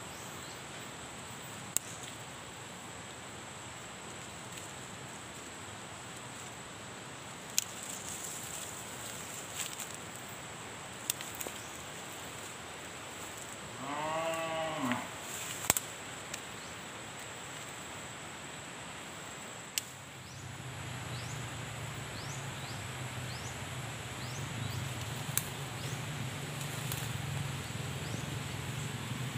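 A cow mooing once from some way off: a single pitched call of about a second, midway through. It sits over a steady high-pitched drone, with a few sharp clicks, and a low hum sets in about two-thirds of the way through.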